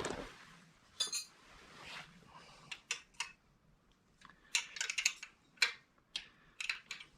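Metal hand tools clinking and clicking against the bolts and fittings of a motorized bicycle as they are checked and tightened: a run of sharp, irregular clinks, thickest about four to six seconds in.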